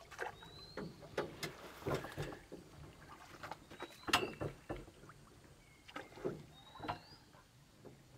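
Irregular knocks and clunks of a small boat's hull and gear as it comes alongside a larger moored boat, loudest about four seconds in. A bird gives a short rising chirp three times, about three seconds apart.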